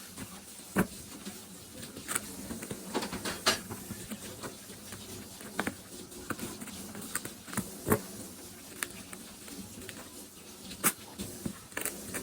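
Irregular clicks, crinkles and rustles of packaging being handled and opened, with a few sharper snaps.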